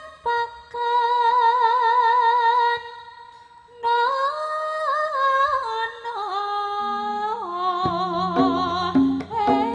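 A sindhen, a female Javanese gamelan singer, sings a slow melismatic phrase of long held notes with a wavering vibrato, stepping down in pitch. The voice is unaccompanied at first and breaks off for a moment about three seconds in. In the last two seconds low gamelan notes come in beneath it.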